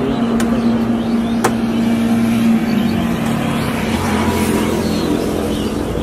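Motor-vehicle engine noise from road traffic, a steady hum, with two sharp clicks in the first second and a half.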